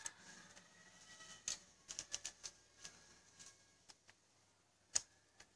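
Faint, scattered small clicks and taps from a soldering iron and a circuit board being handled while capacitors are desoldered from a PC power supply board. There is a quick run of clicks about two seconds in and a single louder click near the end.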